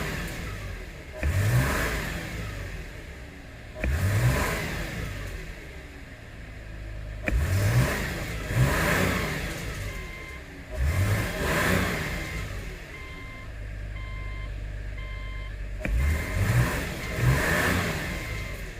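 Subaru Tribeca's 3.0-litre flat-six engine revved up in short throttle blips every few seconds, each rise followed by a drop back toward idle, on an engine that has been throwing a cylinder 1 misfire code. From about halfway through, a short beep repeats steadily, a few times a second.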